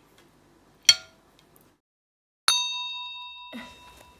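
A metal spoon clinks once against a ceramic soup bowl about a second in. After a short silence, a bright bell-like ding rings out and fades over about a second.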